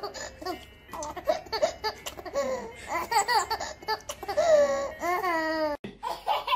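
Baby laughing in short repeated giggles, building to a drawn-out high-pitched squeal about four and a half seconds in. After a sudden break near the end, another baby starts laughing.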